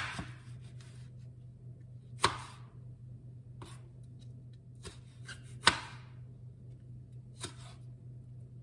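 Kitchen knife cutting small tomatoes on a wooden cutting board: a sharp knock each time the blade hits the board, about six strikes spaced a second or two apart, the loudest right at the start and again near the middle.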